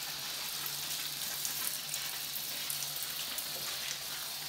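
Shower spray running steadily, rinsing shampoo off a dog's wet coat and onto a tiled shower floor: an even hiss of water, with a faint steady low hum underneath.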